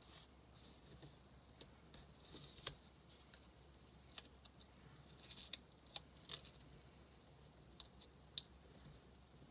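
Faint handling of paper and stickers on a planner page: scattered light clicks and soft rustling as a sticker is pressed and smoothed down by hand.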